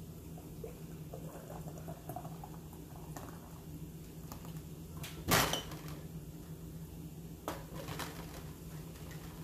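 Glass canning jars being filled with thick chocolate syrup through a plastic funnel, with kitchenware clinking against the glass: one sharp clink about five seconds in, and two lighter knocks near the end as the funnel is moved. A steady low hum runs underneath.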